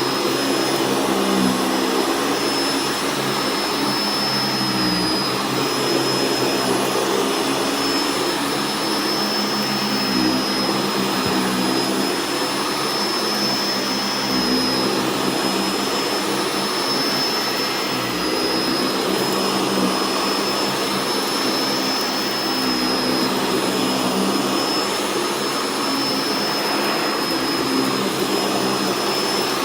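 Sanitaire upright vacuum cleaner running steadily with a high motor whine, pushed back and forth over a rug sprinkled with rock salt. The lower part of the sound shifts every few seconds with each stroke.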